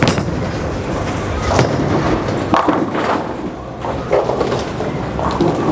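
Bowling alley sounds: a steady low rumble of balls rolling on the lanes, with several sharp knocks and a clatter of pins being struck.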